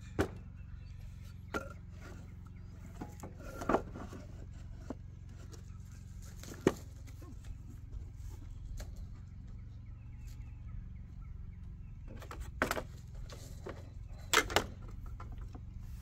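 Scattered sharp knocks and taps of plywood pieces being handled and set down on a wooden workbench, over a steady low background rumble.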